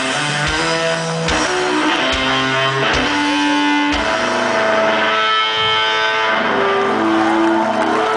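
Rock band playing live over a loud PA: an electric guitar riff over steady drum hits. About halfway the drum hits stop and long guitar notes ring on.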